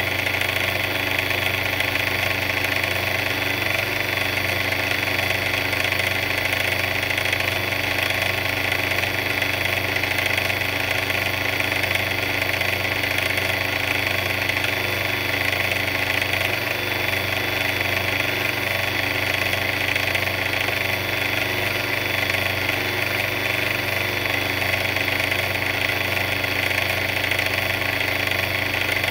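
A big mixer running steadily: a constant mechanical hum with a higher whine over it, unchanging throughout.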